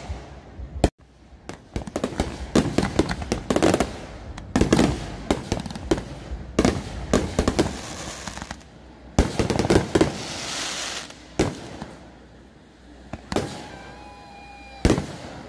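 Aerial fireworks shells bursting in quick succession: clusters of sharp bangs with crackling, and a stretch of hissing about ten seconds in.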